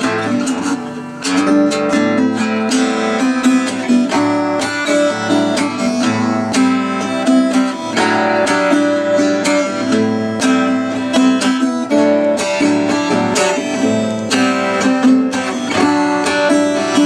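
1950s Berera Venezia 3/4-size acoustic guitar with a spruce top, strung with silk-and-steel strings, strummed and picked steadily in a passage without singing.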